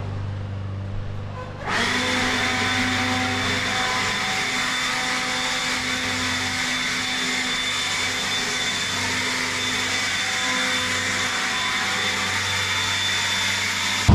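A small electric motor, like a vacuum or blower, starts about two seconds in and runs steadily with a high whine over a rushing of air.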